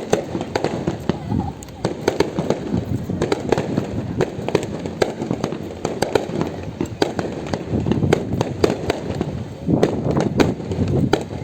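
Fireworks going off in quick succession: a continuous run of sharp cracks and bangs, several a second, thickest near the end, over the murmur of a crowd's voices.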